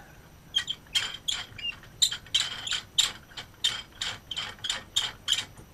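Wicked Chops micro practice pad being screwed by hand onto a cymbal stand's threaded mount: an uneven run of small ticks and clicks, about four a second.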